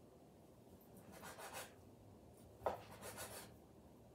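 Knife slicing soaked salt cod into thin pieces on a wooden cutting board: faint scraping strokes, with one short knock about two and a half seconds in.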